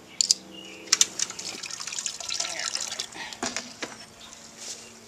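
A few sharp plastic-and-metal clicks as binder clips come off the pot rim, then wort splashing and draining as a mesh bag of mashed grains is lifted out and held over the pot.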